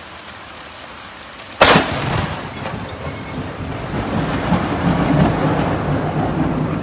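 Steady rain, then about a second and a half in a sudden, very loud thunderclap from a close lightning strike, followed by a rumble that rolls on and swells.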